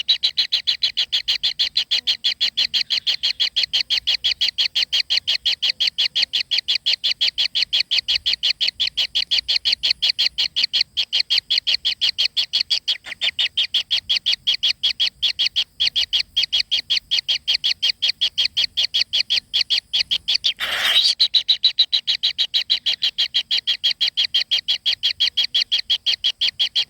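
A bird calling in a rapid, very even run of high chirps that goes on without a break. A short noisy burst cuts in about two-thirds of the way through.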